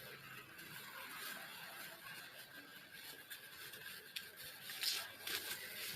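Packaging being handled and unwrapped by hand: faint rustling, with a few louder crinkles and clicks between about four and five and a half seconds in.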